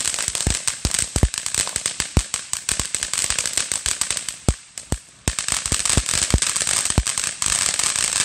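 Ground fountain firework spraying sparks with a loud hiss and a dense crackle, sharper pops scattered through it. It dies down for a moment a little past halfway, then flares up again.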